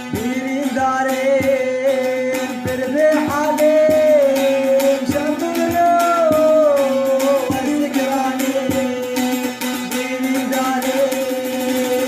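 Middle Eastern music: a solo voice sings a slow, ornamented melody with held, gliding notes over a steady low drone, with drum strokes now and then.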